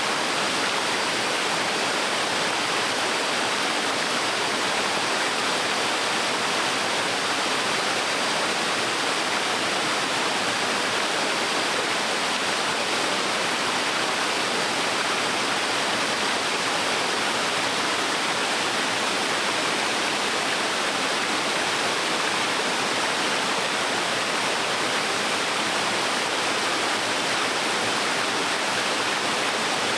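Small waterfall on a stream: water falling and splashing in a steady, even rush.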